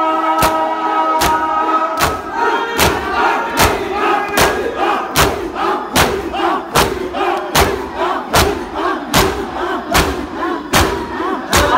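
A crowd of mourners doing matam, striking their bare chests with open hands in unison: a sharp slap about every 0.8 s. The crowd's massed voices chant along with the beat. Held tones in the first couple of seconds give way to the crowd's voices.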